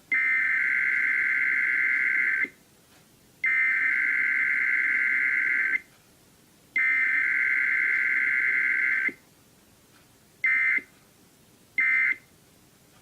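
Emergency Alert System SAME data tones from an EAS encoder in a Required Weekly Test. First come three buzzy header bursts of about two and a half seconds each, about a second apart. Then come short end-of-message bursts, with no attention tone or spoken message between them.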